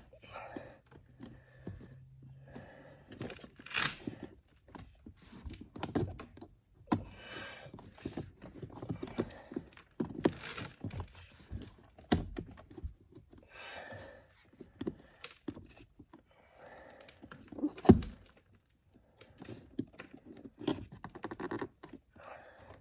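Plastic clicks, knocks and scrapes at irregular intervals as a cabin air filter and its housing cover are worked into place under a car's dashboard, with one loud thunk about eighteen seconds in.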